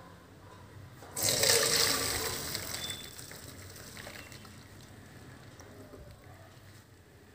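Basmati rice and its hot cooking water poured from a pan into a steel mesh strainer: a sudden gush of water about a second in that fades away as the water drains through. The rice is being drained at about 80% cooked.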